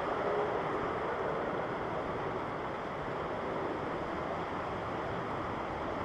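Steady roar of an airliner's jet engines on the runway, a broad even rush with no distinct changes.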